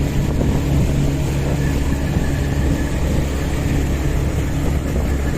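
Boat motor running steadily, with wind rushing over the microphone.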